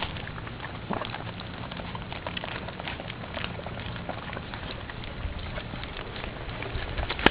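Four-week-old pit bull puppies moving about, a steady crackle of small scratches and claw patter with no clear calls.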